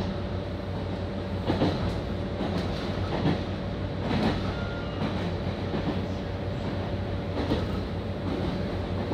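Passenger train running along the line, heard from inside the car. A steady low rumble and hum is broken by a sharp clack every second or so as the wheels pass over rail joints.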